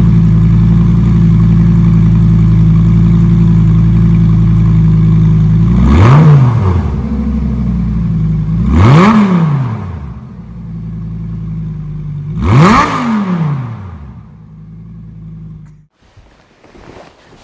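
2007 Lamborghini Gallardo's naturally aspirated 5.0-litre V10 on its stock factory exhaust, idling steadily and loud, then revved in three throttle blips, each climbing higher than the last before dropping back to idle. The sound cuts off suddenly near the end.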